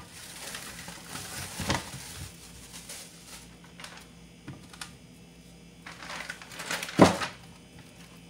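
Plastic zip-lock bag and plastic sheet crinkling and rustling as frozen kebab patties are peeled off and put into the bag, with scattered light clicks and a louder thump about seven seconds in.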